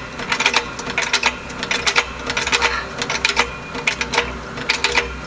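Hydraulic floor jack being pumped to raise a truck back up, its handle and lifting arm giving clusters of sharp metallic clicks and clanks a little more than once a second.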